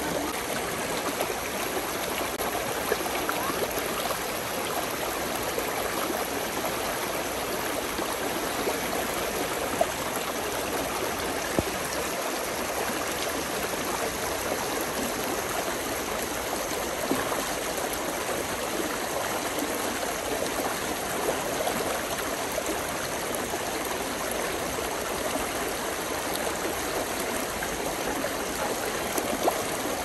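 Spring-fed stream babbling steadily, with now and then a brief louder splash.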